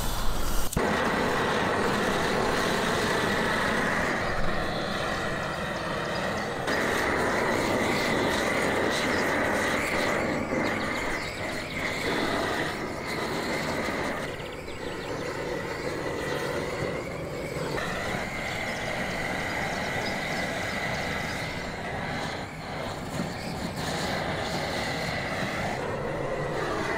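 Propane gas torch burning with a steady rushing noise as its flame singes a sheep's head. The noise starts about a second in and its tone shifts a few times as the flame is moved over the head.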